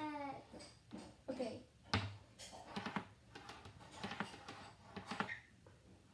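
Irregular light taps and clicks on a hard surface, with one louder knock about two seconds in. A meow-like call fades out right at the start.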